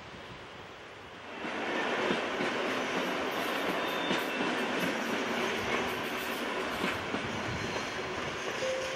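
Yellow Netherlands Railways electric multiple-unit train rolling past close by over the points, wheels clattering over rail joints with scattered clicks and faint squeals. The sound jumps up in level about a second and a half in and stays steady.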